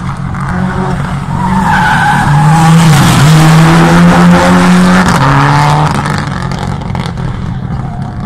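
Rally car engine revving hard as it drives close past, its pitch climbing and stepping with gear changes, loudest in the middle and then fading as it pulls away. There is a brief tyre squeal as it slides early in the pass.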